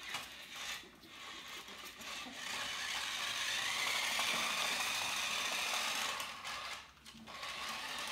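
Toy remote-control car's small electric motor and gears whirring as it drives, starting about two seconds in, rising slightly in pitch midway, and stopping briefly near the end before starting again.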